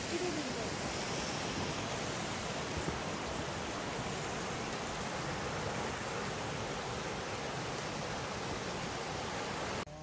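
Mountain stream rushing steadily, cutting off abruptly near the end.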